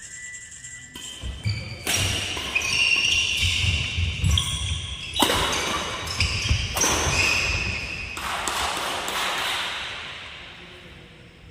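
Badminton doubles rally on a wooden indoor court: rackets striking the shuttlecock, sports shoes squeaking and feet thudding on the floor, echoing in a large hall. It dies down near the end as the rally stops.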